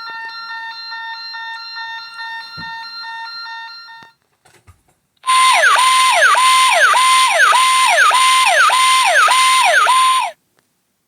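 Two Active911 pager alert tones played from a phone: first a steady, buzzy electronic tone with a rapid pulse for about four seconds, then, after a brief gap, a louder electronic siren tone that repeatedly drops steeply in pitch and snaps back up, about two sweeps a second, for about five seconds.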